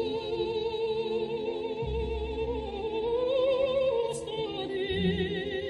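Slow background music in an operatic style: long held melody notes with vibrato, rising and falling, over deep bass notes that come in about two seconds and five seconds in.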